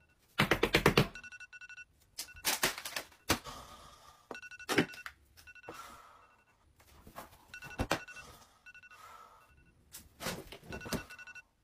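An alarm beeping over and over in short bursts of high tones, broken by several loud bangs.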